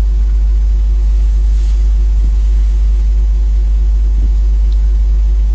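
A loud steady low hum with fainter steady tones above it, unchanging throughout.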